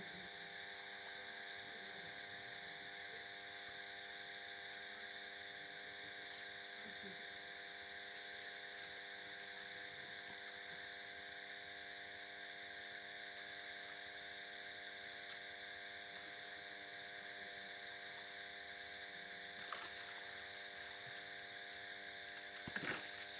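A steady background hum made of several level tones under a high-pitched drone, with a few faint clicks near the end.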